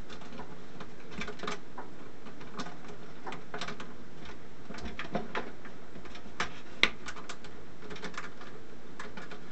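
Scattered light clicks and taps of a hand tool and small metal hardware against an oscilloscope's sheet-metal chassis as it is taken apart, over a steady hiss; one sharper click comes about two-thirds of the way in.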